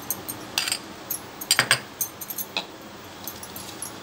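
Steel spoon clinking and scraping against a stainless steel bowl: a run of short, sharp metallic clinks, the loudest about a second and a half in.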